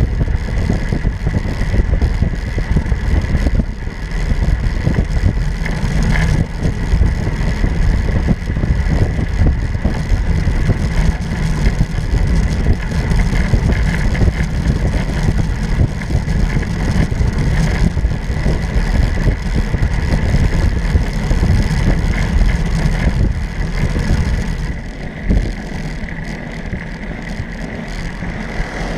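Wind noise over the microphone of a handlebar camera on a moving road bike, a heavy uneven rumble with road noise beneath. It drops to a lower level about 25 seconds in.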